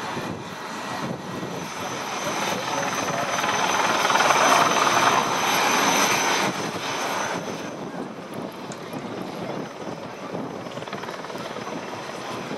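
An aircraft passing: engine noise swells to a peak about five seconds in, then fades away.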